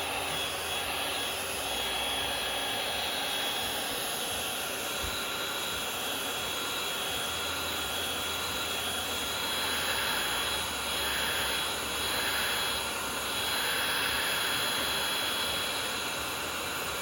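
Hot-air heat gun blowing steadily, a continuous rush of air with a thin high whine, heating the iPhone's screen to soften the display adhesive gasket before opening.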